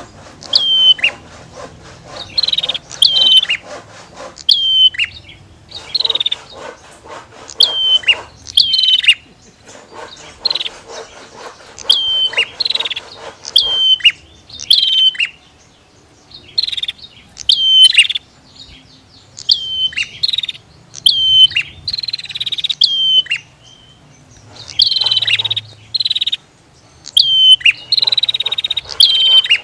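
Prinias (prenjak) calling over and over: sharp, high notes that drop at the end, mixed with buzzy rattling calls, in bursts every second or two.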